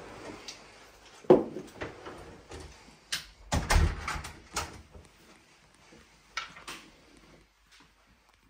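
A few knocks and thumps: one about a second in, a loud cluster around three to four seconds in, and two more near the end, fading toward quiet.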